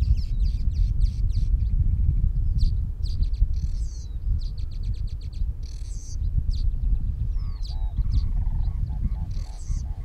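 Wind rumbling on the microphone in open grassland, with wild birds chirping and chattering in short high notes over it. A run of short, lower-pitched repeated calls comes in during the last two seconds.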